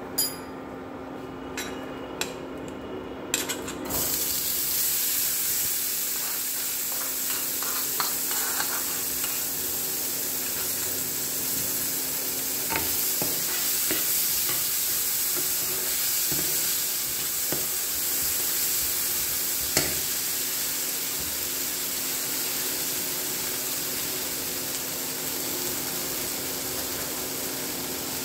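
Sweet corn kernels frying in hot oil and spices in a nonstick pan and being stirred with a plastic spoon. A steady sizzle starts suddenly about four seconds in and goes on, with a few sharp clicks of the spoon against the pan.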